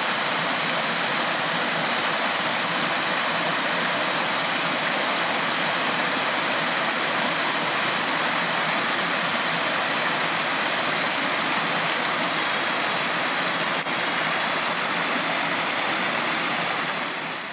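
Steady rushing of a small waterfall spilling into a rocky stream, fading out near the end.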